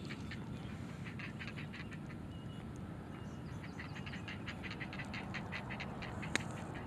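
Ducks quacking in quick runs over a low, steady outdoor rumble, with one sharp click near the end.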